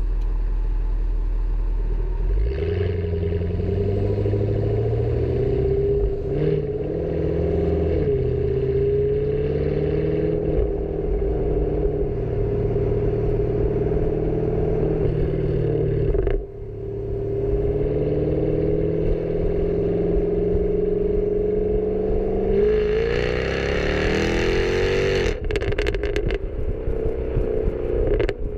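Jaguar F-Type R's supercharged V8 heard right at its twin tailpipes while driving: it picks up revs a couple of seconds in, runs on with the pitch wavering, drops out briefly past the middle, then climbs steeply in revs near the end and breaks into a run of sharp pops and crackles as the revs come off.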